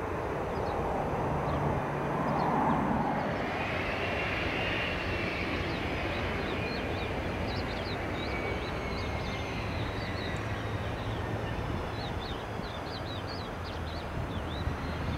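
Cessna Citation CJ3 business jet's twin Williams FJ44 turbofan engines running as it taxis and turns on the runway: a steady jet rush with a high whine that stands out a few seconds in and slowly falls away.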